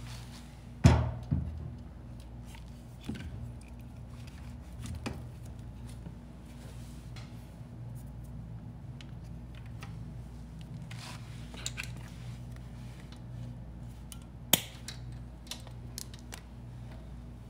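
A 12-volt sealed lead-acid battery set down in a generator's sheet-metal battery tray with a thump about a second in, followed by scattered clicks and rustles of the battery cables being handled, and a sharp click near the end.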